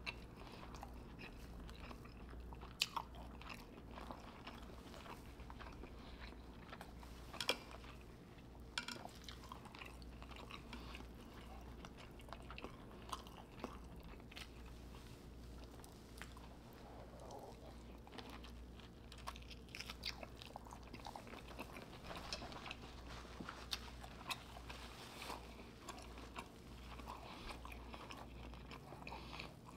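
A person chewing and eating close to the microphone: soft wet mouth clicks and smacks at irregular moments, a few sharper ones, over a faint steady low hum.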